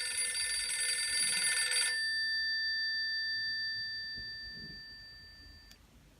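A bell-like ringtone or alert tone played through the Nokia 2760 mobile phone's loudspeaker. It opens with a bright cluster of tones for about two seconds. A few pure tones then ring on and fade out, stopping with a faint click near the end.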